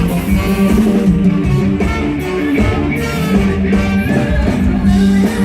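Live Isan band music: an instrumental passage led by guitar over bass and drums.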